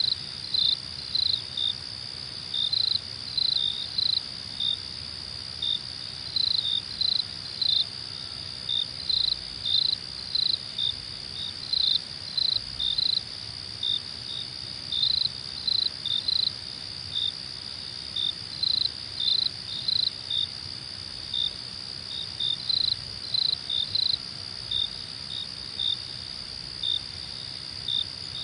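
Crickets chirping: a steady high trill underneath, with a nearer cricket giving short, loud chirps, often in clusters of two or three, about once a second.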